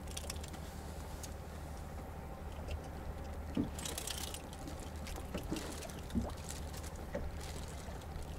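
Steady low hum aboard a small boat, with faint clicks and a brief rustle about four seconds in as fishing line and tackle are handled.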